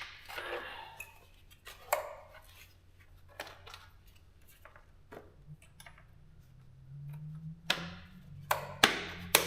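Small metal parts clicking and clinking as pop rivets and hardware are picked through by hand, with a few sharp, loud clinks near the end. A low steady hum comes in about halfway through.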